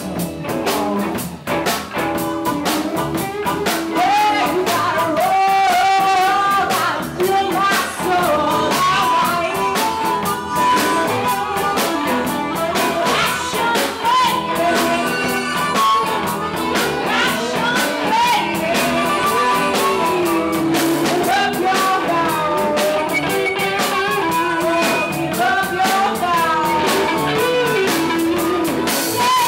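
A live band playing with singing: electric guitars and a drum kit under a lead vocal that carries through.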